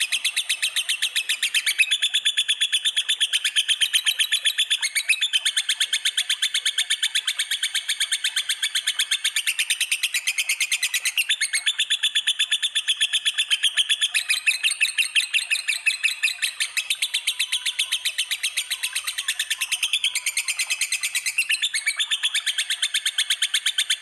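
Recorded cage-bird song for a masteran (song-tutoring) track mixing lovebird, cililin and canary: continuous fast, evenly repeated high chirping trills, shifting pattern a few times.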